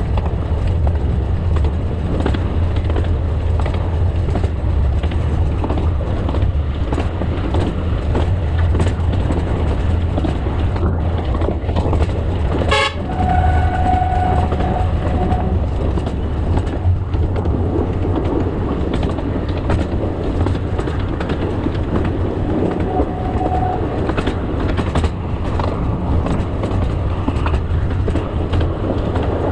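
Narrow-gauge Alishan Forest Railway train running along the track with a steady low rumble. About 13 seconds in, after a sharp click, its horn sounds one steady note for about two and a half seconds, and a short toot follows about ten seconds later.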